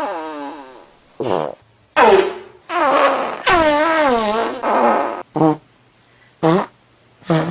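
Fart sound effects: a run of about eight separate farts, pitched and wobbling up and down. The longest come in the middle, and the last three are short pops.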